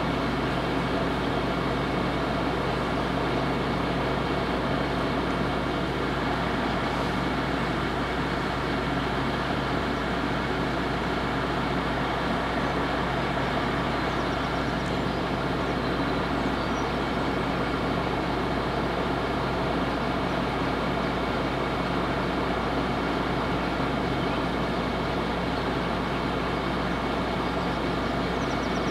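Level crossing warning bells ringing steadily and without a break while the barriers are down.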